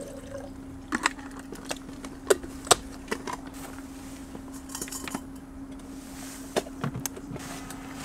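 Plastic clicks and knocks of a plug being pushed into an Enernova portable power station and its output buttons pressed, a cluster in the first three seconds and a few more near the end, over a steady low hum.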